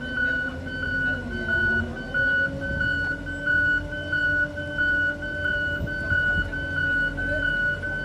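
Asphalt roller's reversing alarm beeping steadily, about two beeps a second, over the steady running of the roller's engine.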